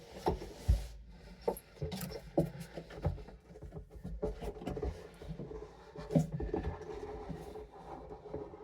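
Irregular knocks, taps and rubbing: handling noise from fitting heavy car subwoofers into place.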